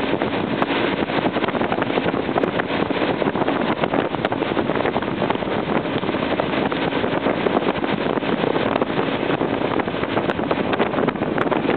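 Motorboat running steadily at speed while towing inflatable tubes, with wind buffeting the microphone and the churn of the wake.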